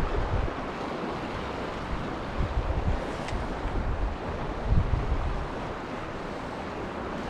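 Steady rush of river water, with wind gusting and buffeting the microphone a couple of times.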